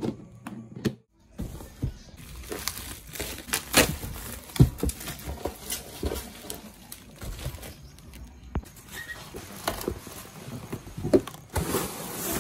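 Cardboard box being handled and opened: rustling and scraping of cardboard and packaging with many small irregular knocks and clicks, growing denser near the end as the flaps are pulled open.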